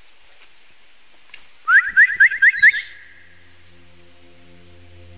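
A bird calling: a quick run of about eight sharp rising notes, repeated twice near the end. A steady low hum with a fixed pitch sets in under it partway through.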